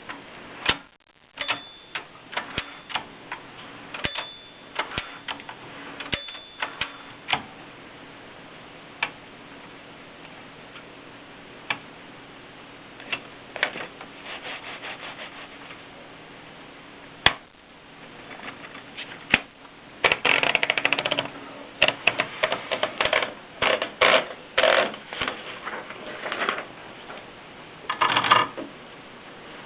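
1950s Olympia manual typewriter being typed on: scattered single key strikes with pauses, then quick runs of keystrokes in the last ten seconds.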